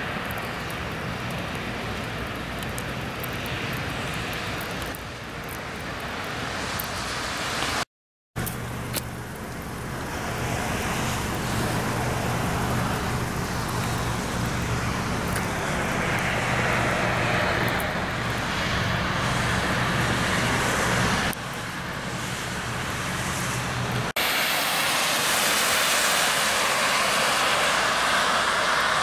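Road traffic noise from cars on wet, snowy roads: a continuous hiss of tyres and engines. It cuts out briefly about eight seconds in, and it changes abruptly twice later on, getting louder and more hissy for the last few seconds.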